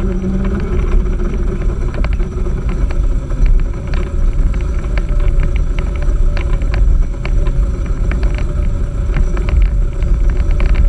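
A go-kart running over asphalt, heard from a camera mounted low on it. A steady low rumble of wind buffeting and engine, with scattered short clicks and no clear engine pitch.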